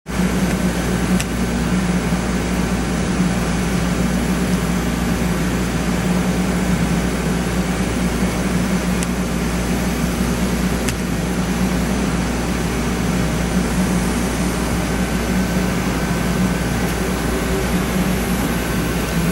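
Steady hum of CNC shop machinery running, with a strong low drone and a few faint clicks.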